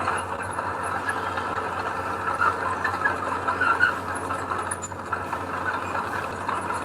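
Heavy earthmoving machine's diesel engine running steadily, with scattered short metallic squeaks over the constant drone.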